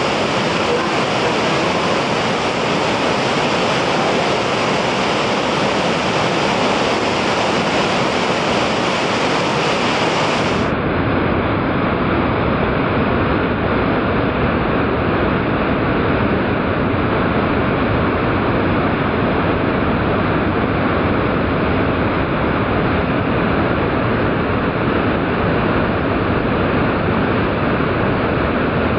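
Steady rushing of a broad waterfall, played back slowed to half speed, then slowed further to quarter speed about eleven seconds in, where the rush turns deeper and duller.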